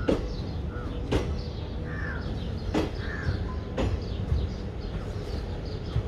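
Crows cawing several times, about a second apart, with small birds chirping faintly, over a low steady rumble.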